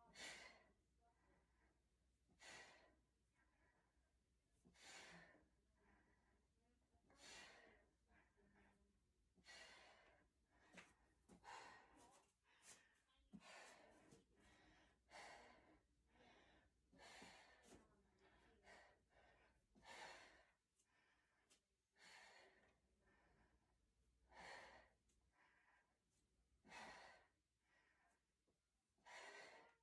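Faint breathing of a woman exercising with a kettlebell: a hissy breath out about every two seconds.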